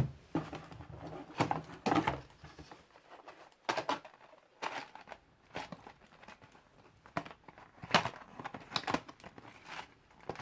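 Plastic packaging rustling and crinkling as parts are unwrapped and handled, in short irregular bursts with handling knocks between them.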